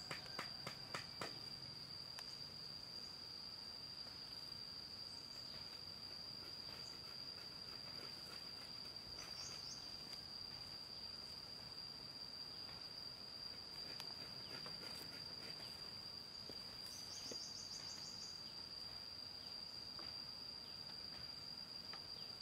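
Insects droning in one steady, unbroken high-pitched whine, with a few light knocks in the first second or so and two brief higher chirps partway through.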